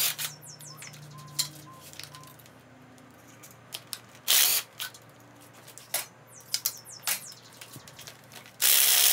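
A cordless DeWalt driver with a socket spinning the 17 mm nuts off an air-cooled VW engine case in short bursts: a brief burst at the start, one about four seconds in, and a longer one near the end. Light metal clicks and clinks between the bursts.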